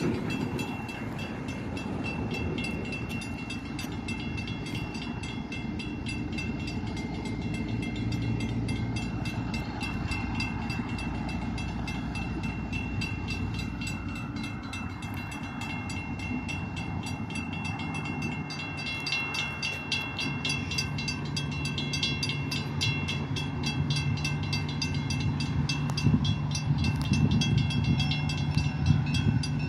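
EMD F7 diesel locomotive's two-stroke engine running as it approaches along the track, a steady low drone that grows louder toward the end.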